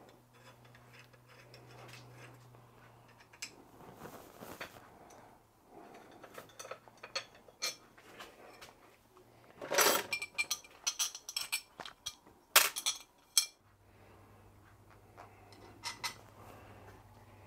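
Small metal parts clinking and tapping on a workbench: screws and an aluminium adapter plate handled on a dynamo, with a burst of louder, sharp clinks about ten seconds in.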